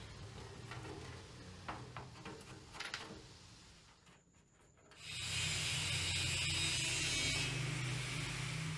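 A low hum with a few light clicks, then about five seconds in a loud, steady spraying hiss starts and keeps going.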